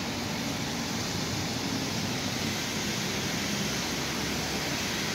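Steady wash of rain and of car tyres running through floodwater on a flooded road.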